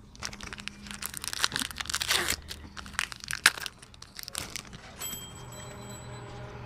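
Pokémon Unified Minds booster pack's foil wrapper being torn open and crinkled by hand: a dense run of crackles that stops about four and a half seconds in, leaving a faint steady hum.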